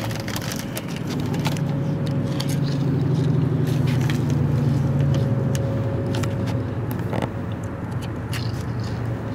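Low, steady rumble of a car's engine and road noise heard inside the cabin, swelling a few seconds in. Over it come scattered sharp crackles and crunches from a bag of chips being handled and the chips being eaten.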